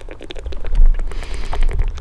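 Background music with strong bass.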